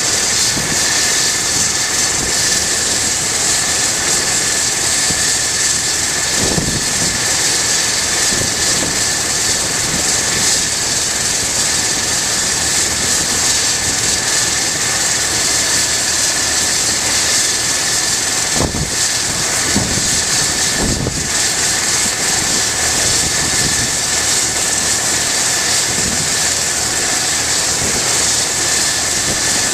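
Eurocopter EC135 helicopter running on the ground with its rotor turning: a steady turbine whine and hiss with one constant high tone. A few brief low thumps come through, the clearest near the two-thirds mark.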